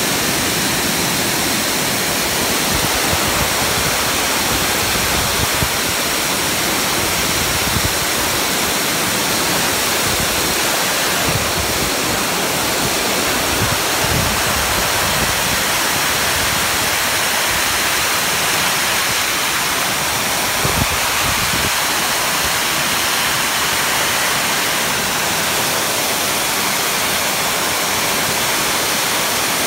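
High-velocity pet dryer blowing a steady rush of air into a dog's thick white coat, parting the fur down to the skin to blow out the undercoat. A thin high whine sits over the air noise.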